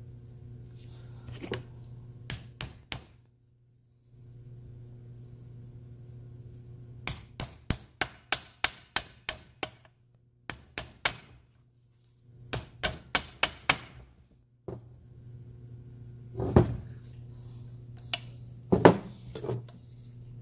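A hammer tapping a metal driver tool to seat the reverse detent's dust cap in the ZF S5D 320Z gearbox case, working against the stiff reverse detent spring. The taps come in quick runs of about four a second, with a few heavier blows near the end, over a steady low hum.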